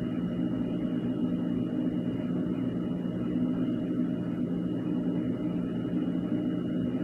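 A steady mechanical hum with several low pitched tones and a thin high whine above them, unchanging throughout.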